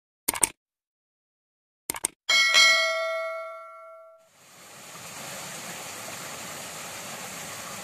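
Subscribe-animation sound effects: two quick pairs of clicks, then a bell ding that rings out and fades over about two seconds. After that a steady outdoor hiss.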